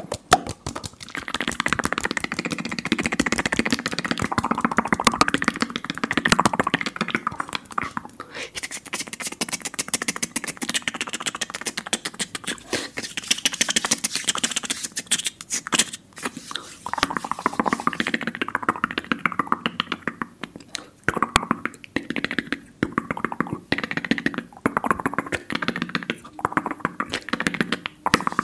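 Fast ASMR mouth sounds close to the microphone: a quick, continuous stream of clicks, pops and smacks, many per second.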